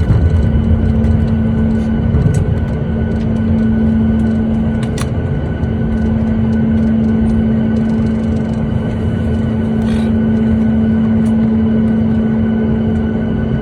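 Cabin noise inside a Boeing 737-8: a steady low rumble with a constant droning hum from the engines and air systems, and a few light clicks and knocks.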